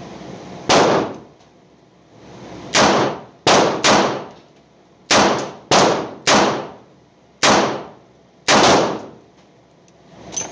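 Shots from a Smith & Wesson Model 12 aluminum-frame .38 Special snub-nose revolver fired double action on an indoor range: about nine sharp reports at irregular intervals, each with a short echo.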